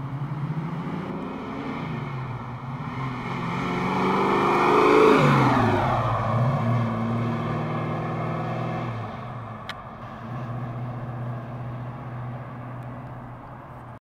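A 1969 Chevrolet Nova's 502 ZZ crate big-block V8 revving up as the car approaches, loudest about five seconds in as it passes, its pitch dropping as it goes by and pulling away. The sound cuts off suddenly near the end.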